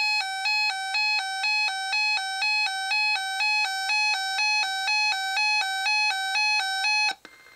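Reecom R-1630 weather-alert receiver sounding its electronic alarm, a buzzy tone switching between two pitches about twice a second, that cuts off suddenly near the end. It is the receiver activating on a tornado watch alert header that it displays as unrecognized.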